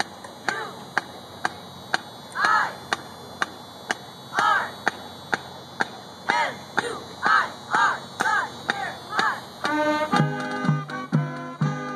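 A marching band keeping time with a steady sharp click about twice a second, with short rising-and-falling calls over it. About ten seconds in, the band's brass and drums come in together.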